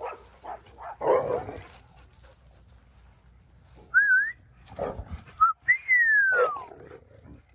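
A person whistling to call dogs: a short rising whistle, a brief note, then one long falling whistle in the second half. A dog barks about a second in and again near five seconds.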